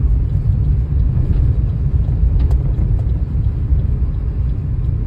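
Steady low rumble of a Suzuki car heard from inside the cabin while it is being driven slowly: engine and road noise, with a faint click or two about halfway through.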